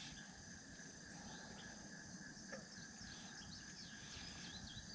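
Faint evening chorus of crickets and other insects, a steady high trilling, with short high chirps coming in and out through the second half.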